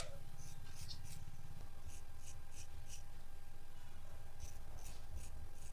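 Straight razor scraping through wet, coarse hair on a scalp in short strokes, several a second, in two runs with a pause between them, over a low steady hum.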